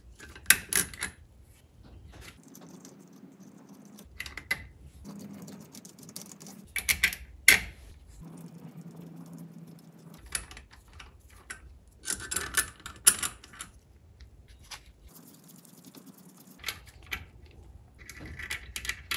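Small 5/8 nuts and washers clinking as they are spun off the outdrive bell housing's threaded studs by hand and set down, in about five short bursts of metallic clicks with quieter handling between.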